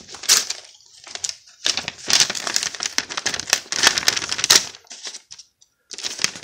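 A paper envelope being split open by hand and its paper contents handled: irregular crinkling, rustling and tearing of paper, with a short pause near the end.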